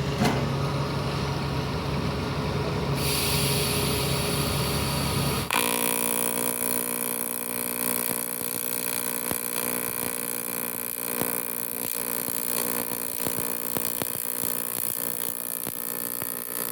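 AC TIG welding arc on aluminium: a steady electric buzz with hiss that starts abruptly about five and a half seconds in and holds to the end. Before it there is a steady low hum.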